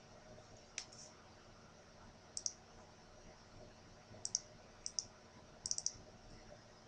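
Faint computer mouse button clicks, a dozen or so short clicks spread irregularly, several in quick pairs like double-clicks and a quick run of four near the end.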